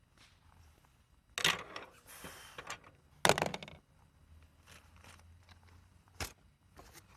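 Handling noises: a few sharp knocks, the loudest a little over three seconds in, with a short rustle between them and a single click near the end.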